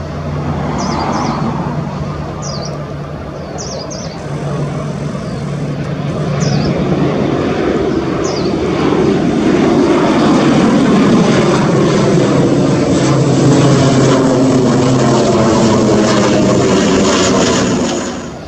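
ATR twin-turboprop airliner flying low overhead on approach: a steady low propeller hum and engine noise that grows louder as it passes and then cuts off abruptly near the end. A bird chirps a few times in the first seconds.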